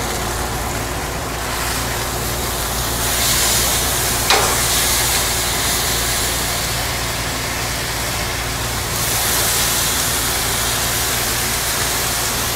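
Steady hum of a kitchen exhaust vent fan under the hiss of T-bone steaks sizzling on a hot gas grill. The sizzle swells as the steaks are turned with a spatula, and there is one sharp metal click about four seconds in.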